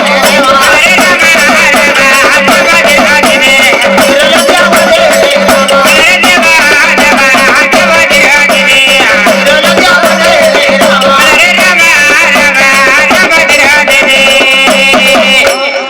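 A Marathi folk devotional song sung by a jhilkari, a lead chorus singer, over steady drone tones and fast, dense percussion with a rattling, cymbal-like beat. The music stops abruptly just before the end.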